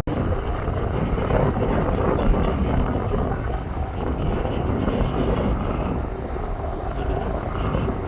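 Airplane engines running steadily, a broad rumble that slowly grows quieter toward the end.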